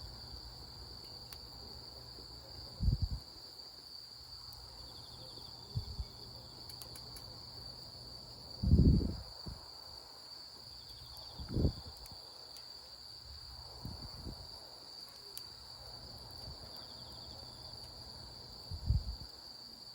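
Insects singing outdoors: a steady, high-pitched trill, with a short pulsed chirp about every five seconds. Several brief low thumps break in, the loudest about nine seconds in.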